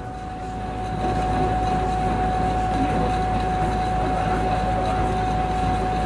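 A steady mechanical hum: a low rumble with a single constant high tone over a noisy whir.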